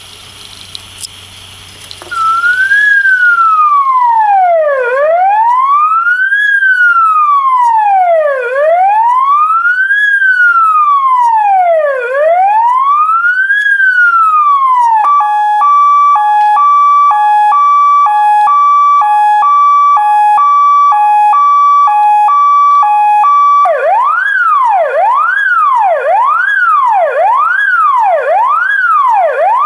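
Bioren electronic siren modulator sounding its signals through a loudspeaker. It starts a couple of seconds in with a slow wail rising and falling about every three and a half seconds, switches about halfway through to a two-tone hi-lo alternating about twice a second, and near the end switches to a fast wail rising and falling about once a second.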